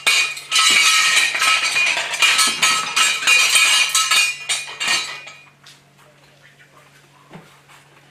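Metal pieces rattled and clattered hard against each other, with ringing metallic tones, stopping about five seconds in. It is a noise made to test how a puppy reacts to a startling sound.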